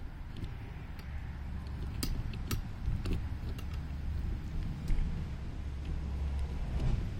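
Scattered sharp clicks and light metal knocks of hand tools working at the pulley of a Gravely Model L engine, half a dozen spread irregularly, over a steady low rumble.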